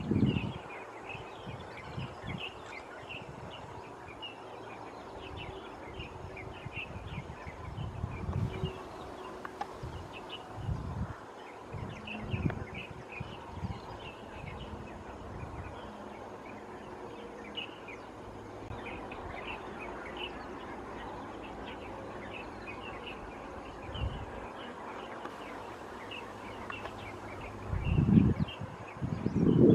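Many short, high bird chirps repeating over a steady outdoor hiss. A few low rumbling bumps break in, loudest near the end.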